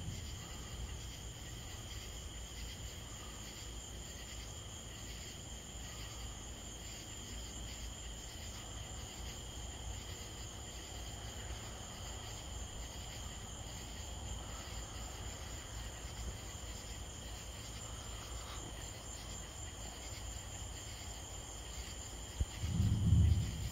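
Night insect chorus: a steady, high-pitched trilling of crickets over a low rumble, with a brief, louder low thump near the end.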